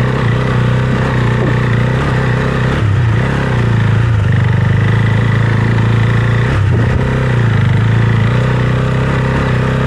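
Husqvarna Svartpilen 401's single-cylinder engine running while the bike is ridden, its pitch steady but dipping briefly about three times.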